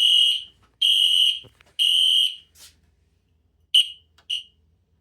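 Wheelock fire alarm horn sounding code 3: three loud, high-pitched half-second blasts one second apart, the temporal-three evacuation pattern. Near the end come two short chirps of the same tone.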